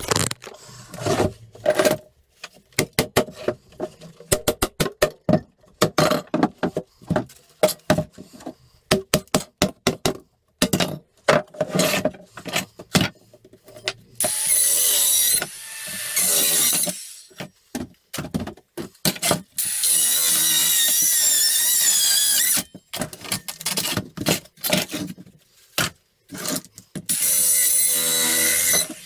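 Compact handheld circular saw cutting through pallet wood in three runs, the first about halfway through, each a loud whine that wavers under load. Before them comes a string of short, irregular knocks and clicks.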